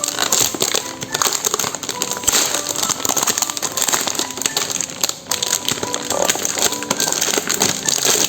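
Crinkling and crackling of packaging, with small clicks and knocks as the keyboard is handled and unwrapped, over quiet background music.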